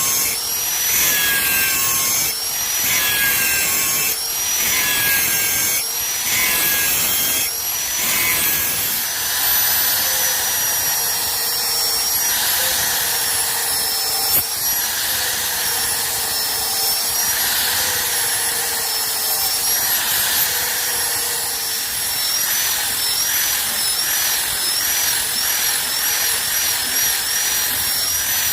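Electric grinder whining as steel is ground on it. For the first several seconds it goes in regular passes, each under a second; then it settles into steadier grinding, its pitch wavering with the load.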